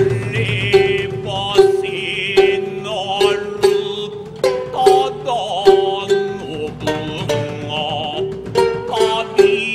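Bunraku accompaniment on the thick-necked futozao shamisen: a melody of sharply plucked notes that keeps returning to the same low note, with a few higher held tones above it.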